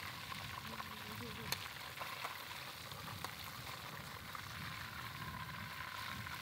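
Tilapia frying in hot oil in a wok: a steady sizzle with fine crackling. One sharp click sounds about a second and a half in.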